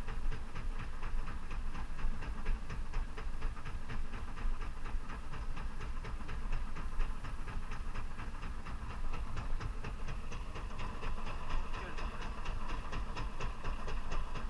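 Spinning reel's drag clicking steadily, about three or four clicks a second, as line is pulled off the spool. Under it runs the low rumble of a boat engine.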